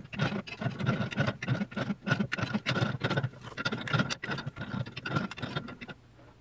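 A steel bench vise worked closed and open again and again on a bandsaw blade, giving a rapid, irregular run of metallic clicks and clanks from the handle, jaws and blade. It is pressing the blade's teeth to reduce their set. The clatter stops about six seconds in.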